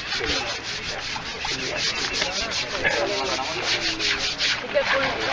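Elephant's wet hide being scrubbed by hand, a rapid rhythmic scratching of about five strokes a second.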